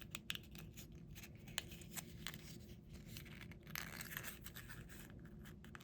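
Faint handling noises: scattered light clicks and brief rustles as a small cardboard toy pizza box and its pieces are handled and fitted together.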